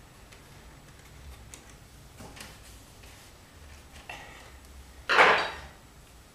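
A few faint clicks of a screwdriver and wires at screw terminal strips, then a louder brief scrape or rustle about five seconds in.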